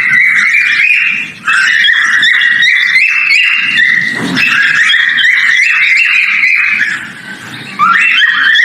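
Male cockatiel whistling its mating call: rapid phrases of short whistled notes stepping up and down in pitch, with brief pauses about a second in and again shortly before the end.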